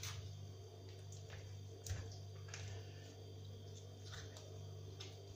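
A kitchen knife cutting and scraping into a carp at the gills and head: several short, wet scrapes and crunches, the loudest about two seconds in, over a steady low hum.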